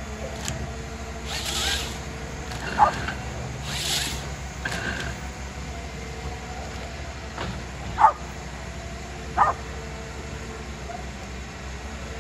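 A small white dog barks three times, a short sharp bark each time: one about three seconds in and two close together near the end. A steady low hum of diesel forestry machines runs underneath, and a couple of brief hissing bursts come in the first few seconds.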